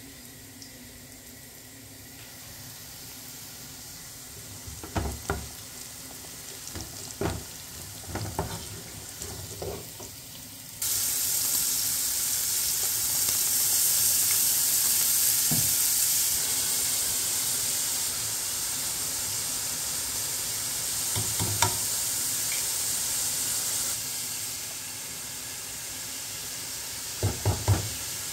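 A few knocks over a low background, then about eleven seconds in a loud, steady sizzle starts abruptly: minced meat (keema) with onions frying in a pot. A wooden spoon knocks against the pot now and then as it is stirred.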